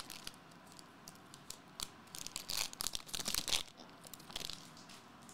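Shiny trading card pack wrapper being torn open and crinkled in the hands: irregular crackling rustles, busiest about two and a half to three and a half seconds in.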